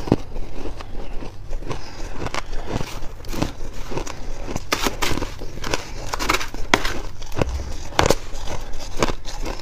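Shaved ice crunching close to the microphone: mouthfuls being chewed and a metal spoon scooping through a plastic tub of shaved ice, in irregular crackling clicks.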